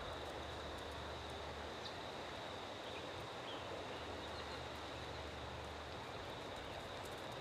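Steady outdoor background noise with a constant high-pitched whine, and a low rumble that fades in and out twice. The cantering horse's hoofbeats on the arena sand are not distinct.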